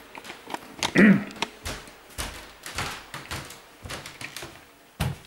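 Irregular knocks, taps and thuds of boxes and small objects being handled, the loudest about a second in, ringing in a nearly empty room.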